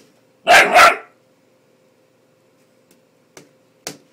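Bull Terrier puppy barking twice in quick succession about half a second in, followed by a few faint clicks.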